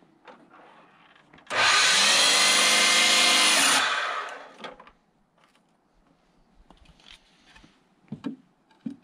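Electric miter saw starting up and running for about two seconds as it takes a trim cut through a lumber brace that was still a little long, then winding down after release. A few light knocks of wood being handled near the end.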